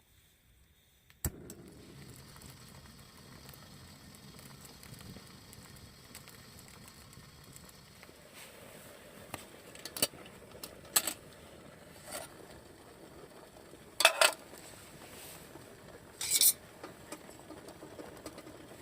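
Scattered clinks and knocks of camp cookware and utensils being handled, over a steady background hiss, with two louder scraping bursts near the end.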